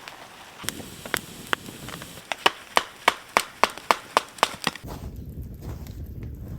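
A quick run of about a dozen sharp wooden knocks, roughly three a second, each with a short ring, as when kindling is split. From about five seconds in they give way to a low rumbling noise.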